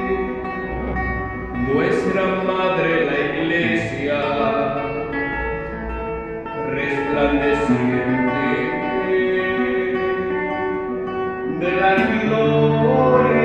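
Singing accompanied by guitar, with held sung notes and a new phrase starting about every five seconds.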